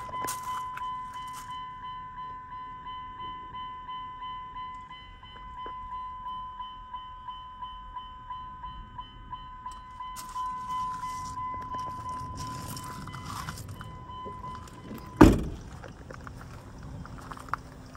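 2004 Dodge Dakota's open-door warning chime dinging in a quick, steady repeat, then stopping. About half a second later the door shuts with one loud thunk.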